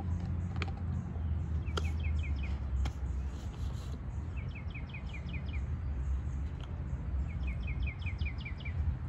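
A songbird singing three short phrases, each a quick run of six or seven down-slurred notes, over a steady low outdoor rumble. A few light clicks sound in the first three seconds.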